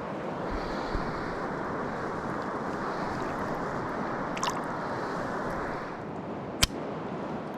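Shallow river water running steadily, with a couple of faint ticks and one sharp click about two-thirds of the way through.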